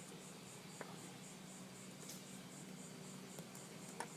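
Faint, sparse clicks of small metal parts as the pawl spring is worked back into the head of a 1/4-inch drive ratchet, over a low steady hum.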